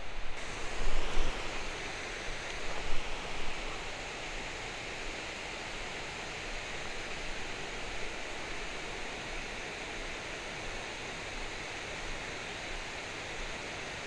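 Steady rush of flowing river water, with a few brief knocks and handling noises in the first few seconds.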